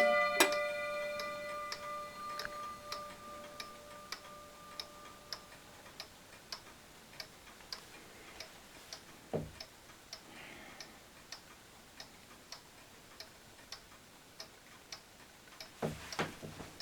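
Wall clock ticking steadily after the last strike of its automaton figure's bell. The bell's ringing fades away over the first few seconds.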